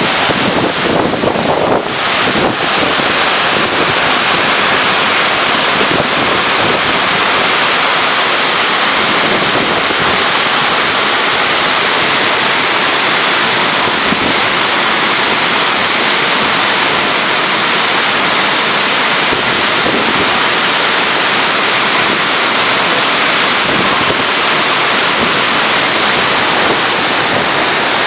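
Waterfall water rushing, loud and steady.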